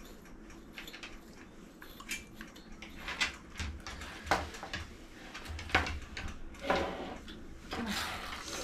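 Scattered clinks and scrapes of metal grooming tools, a mat-breaking tool and a steel comb, handled and set down on the grooming table, over a faint low hum.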